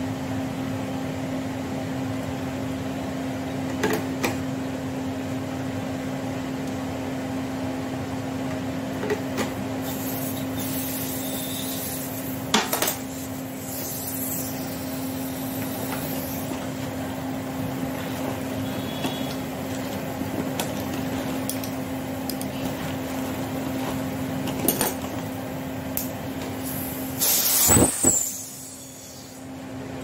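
A steady machine hum with occasional sharp metal clicks and knocks from hand tools worked around a refrigerator's compressor and copper pipes, with a louder clatter of knocks near the end.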